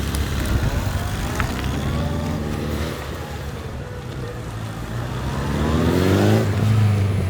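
Police motorcycles' engines running during formation drill riding, with the pitch rising as they accelerate, twice, the second time louder near the end.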